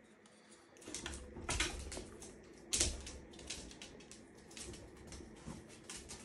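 A dog eating its breakfast: irregular crunching and clicking that starts about a second in, loudest about halfway through.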